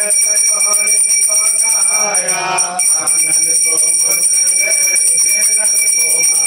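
A puja bell ringing continuously and rapidly for the aarti, a steady high-pitched ringing, with people singing the aarti underneath.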